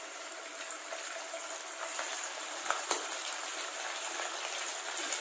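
Boiled mutton pieces frying in hot oil in a wok: a steady sizzle with a few sharp pops and crackles.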